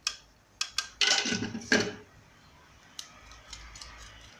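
Kitchen utensils clinking and knocking against dishes: a few sharp clicks, then about a second of louder clattering, then faint ticking.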